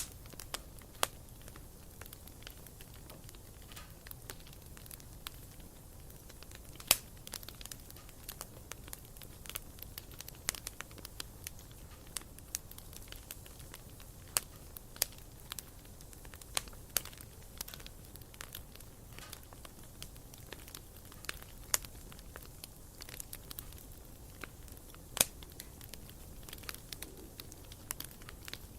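Wood campfire crackling: irregular sharp pops and snaps over a low steady hiss, with a few much louder snaps among them.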